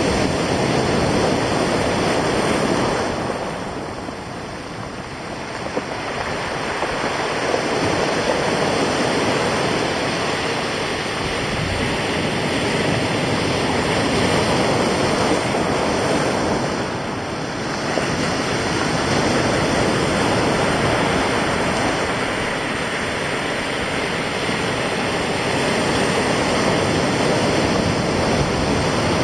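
Sea surf breaking on the rocks and stones of the shore, a continuous wash that eases off twice and builds again, with wind.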